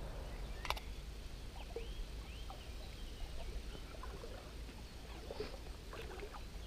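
Quiet river ambience: a steady low rumble, a sharp click just under a second in, a few small ticks, and a handful of faint bird chirps.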